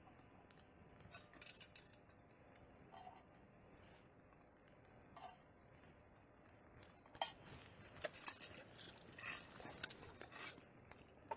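Faint, scattered clinks and light taps of small hard objects being handled, a few about a second in and a busier run from about seven to ten seconds in, over a quiet background hush.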